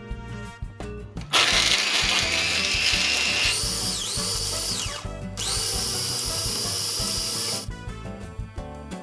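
Mitochiba CH200 300-watt electric chopper running at high speed crushing ice cubes, in two runs of about four and two seconds with a short break between; its whine dips in pitch briefly as the blades bite. Background music plays before and after.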